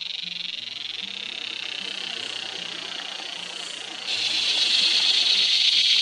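Cicada singing: a continuous high-pitched buzzing drone that jumps suddenly louder about four seconds in.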